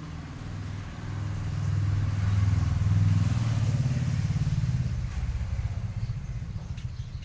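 A small engine running, with a fast low pulsing; it grows louder about a second in and eases off again after about four seconds.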